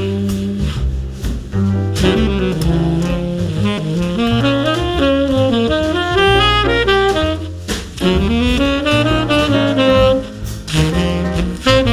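Jazz quartet playing: a tenor saxophone carries a flowing melodic line over piano, double bass and drums.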